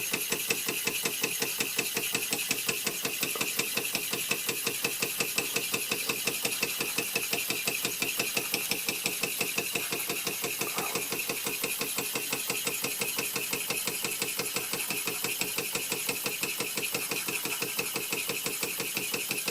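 1926 Bing toy steam engine running steadily under steam, giving a rapid, even chuff from its exhaust valve as it drives a small grinder.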